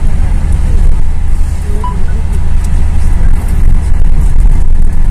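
Steady low rumble of a car driving at highway speed, heard from inside the cabin: engine and road noise.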